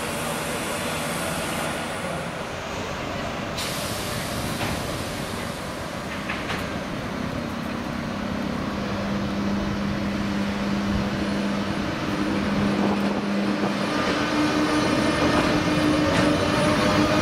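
ČD class 362 electric locomotive hauling a train of passenger coaches along the platform, getting louder as it approaches and passes. Its wheel and rail noise carries a steady electric hum, shifting to a higher tone with gliding whines near the end.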